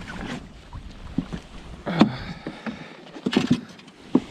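Knocks and clunks of people and gear moving around in a small boat: one loud knock about two seconds in, a quick run of knocks a second later, and another near the end.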